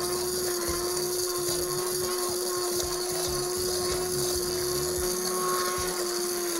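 Hand-held immersion blender running at a steady pitch, puréeing vegetables in a pot of liquid gravy.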